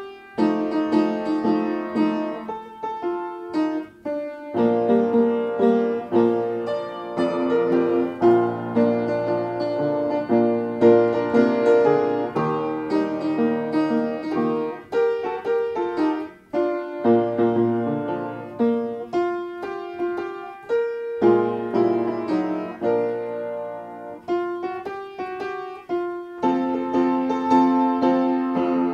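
Upright piano played solo: a gospel hymn in full chords with melody and runs, the notes ringing on between chord changes, with brief lulls about 4 and 16 seconds in.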